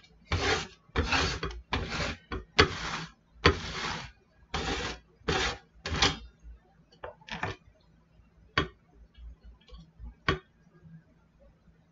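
Herb grinder being twisted back and forth: about ten short grinding strokes over the first six seconds, then three sharp clicks and a few faint ticks.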